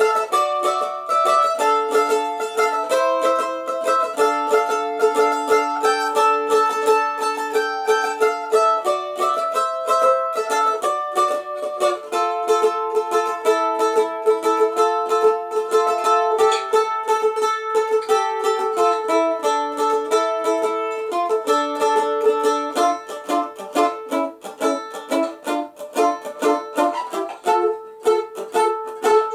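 An F-style mandolin played solo, a melody picked with quick, even strokes. It gets softer and more broken in the last third.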